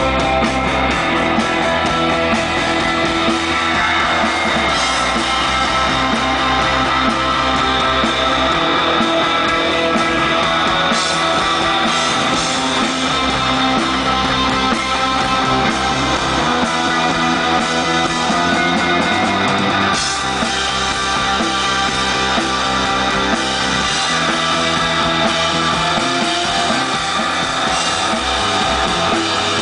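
Rock band playing a song live, with guitars and a drum kit.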